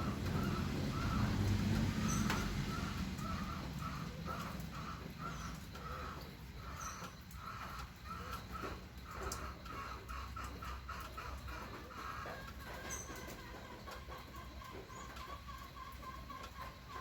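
Birds calling outdoors: a rapid run of short, evenly repeated notes, about two to three a second, that merge into a wavering call near the end. Brief high chirps come every few seconds. A low rumble is loudest in the first two seconds.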